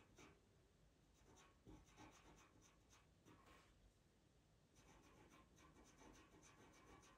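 Faint scratching of a pastel pencil on Pastelmat paper, laid down in many short, quick strokes that come in bursts with brief pauses between.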